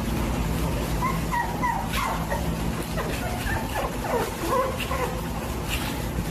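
Young puppies whimpering and yipping: many short, high, falling squeaks in quick succession.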